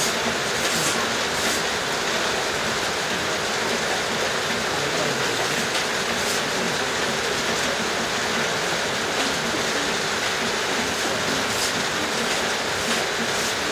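A steady, even hiss throughout, with faint short scrapes now and then as a knife shaves along a wooden bow stave.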